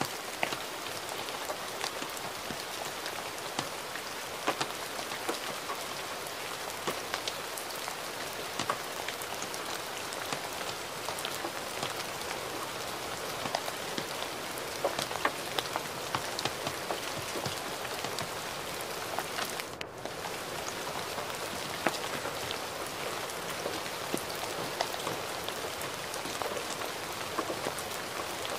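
Gentle, steady rain: an even hiss with many sharp individual drops ticking through it. The sound briefly dips for a moment about twenty seconds in.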